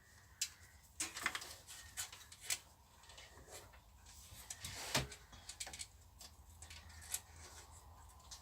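Scattered light clicks and taps from handling wires and a connector, with one sharper knock about five seconds in.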